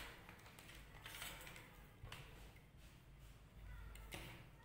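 Near silence with faint handling noise: a few light clicks and rustles as multimeter test leads and wires are handled on a workbench.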